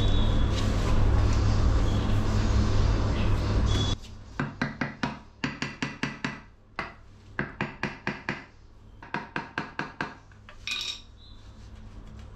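A loud steady rumble with a low hum cuts off abruptly about four seconds in. After it come runs of quick sharp taps, about five a second, from a tool tapping a marble threshold strip down into its bed of mortar.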